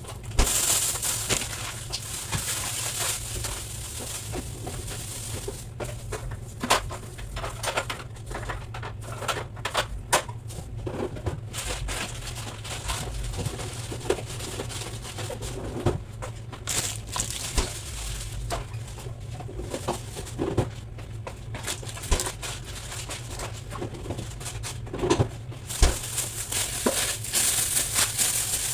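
Irregular knocks, clicks and rustling of items being handled and wiped while a refrigerator is cleaned, over a steady low hum.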